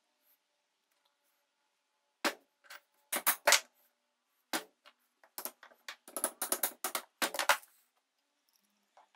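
Restored cast-iron Stewart Handy Worker vise handled on a wooden workbench: sharp clunks and clacks of the iron body being tilted and set down, starting about two seconds in, with a quicker run of clacks in the second half.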